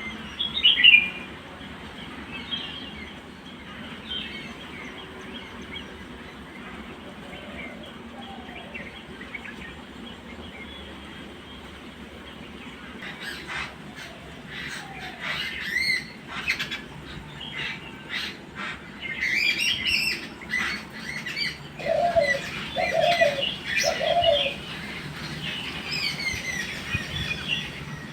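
Several birds chirping and calling, sparse at first and busier through the second half. Near the end comes a run of three short, lower calls.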